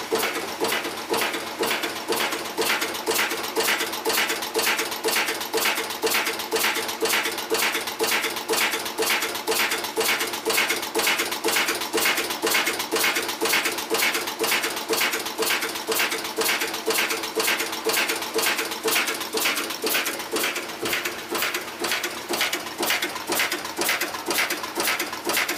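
RA-15C cold heading machine for screws and self-tapping screws running at production speed, knocking out a steady, even beat of about three strokes a second as it forms screw blanks from wire. A steady hum underneath fades about twenty seconds in.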